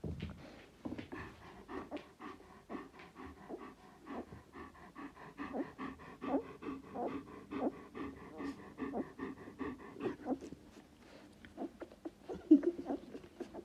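Puppies nursing at their mother dog: quick, rhythmic suckling smacks and breathing, several a second, with one louder smack near the end.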